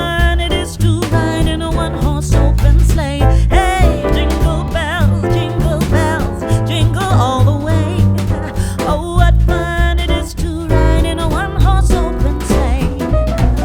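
Background pop music: a sung vocal over a strong, pulsing bass beat.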